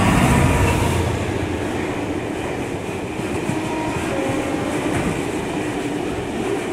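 A train running along the track: a steady rushing, rumbling noise with the clickety-clack of wheels over the rails, loudest at the start.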